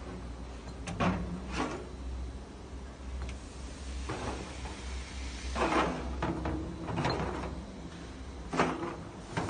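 Glass bottles on a labeling machine's outfeed tray, bumping and sliding against each other about seven times, each knock trailing off. A low machine hum sits underneath.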